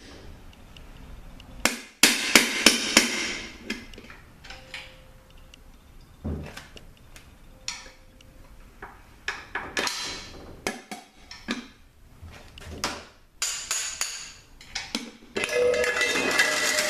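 Metal-on-metal taps and clicks as a hand tool works the front cover loose from a 66RFE automatic transmission's case. There is a quick run of sharp taps about two seconds in, scattered clicks after it, and a longer metallic scraping and rattling near the end as the cover comes free.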